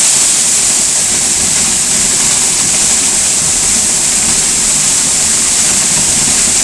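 Eas Mor, a 104-foot waterfall in spate: a loud, steady rush of heavy falling water.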